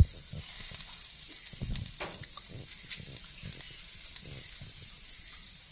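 Wood fire under a grill rack, hissing and crackling, with a sharp knock at the start and a few dull low thumps.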